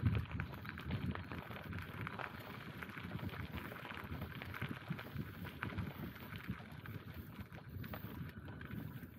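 Bicycle being ridden along a path: the tyres roll with a low rumble while the bike rattles in many irregular knocks and clicks, with a heavier bump at the very start.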